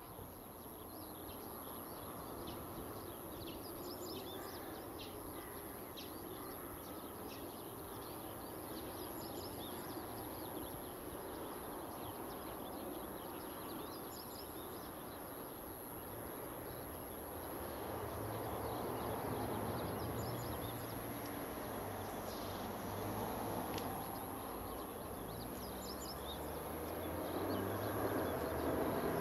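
Outdoor ambience with small birds chirping, and the rumble of an approaching Chikuho Electric Railway 2000-series electric car, growing louder from about halfway and loudest near the end.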